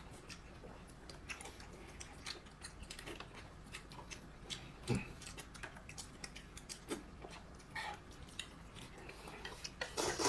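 Quiet eating sounds at a meal: chewing, with scattered light clicks of utensils against bowls.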